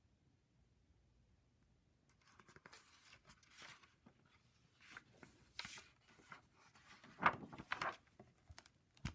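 Pages and cover of a hardcover picture book being turned and handled: a run of papery rustles and swishes starting about two seconds in, loudest a little before the end, then a sharp tap.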